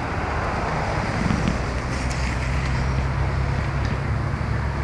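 Steady outdoor background rumble and hiss picked up by the camera microphone, heaviest in the low bass, with a few faint ticks.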